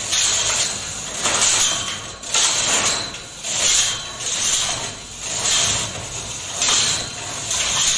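Manual chain hoist being worked by hand: the hand chain rattles through the block and the ratchet clicks in repeated pulls, about one a second.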